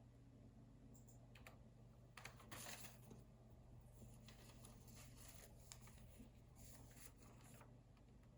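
Computer keyboard being typed on in short, faint runs of keystrokes, with pauses between them, over a steady low hum.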